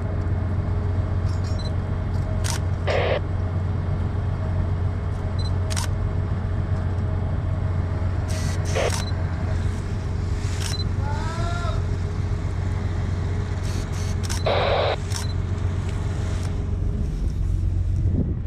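Steady low machinery hum aboard a bulk carrier at anchor. Over it come scattered sharp clicks, three short bursts of hiss, and a brief run of chirps about eleven seconds in.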